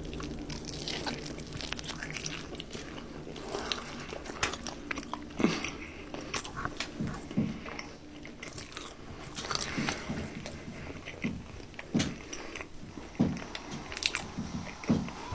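A person biting into and chewing a KFC Double Down, the fried chicken fillets and cheese, close to the microphone: a bite near the start, then chewing with irregular sharp clicks and crunches, a few of them louder than the rest.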